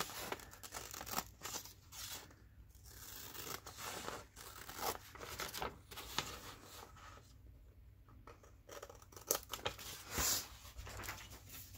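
Paper being cut with scissors and handled, in short snips and rustles, with sneezing near the end.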